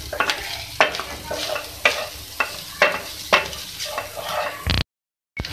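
Wooden spatula stirring and scraping beef keema around a metal frying pan, with repeated scrapes and knocks against the pan over a steady sizzle of frying. The sound cuts out briefly near the end.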